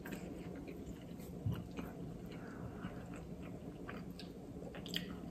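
A person chewing a mouthful of soft fettuccine pasta, with wet mouth smacks and scattered small clicks.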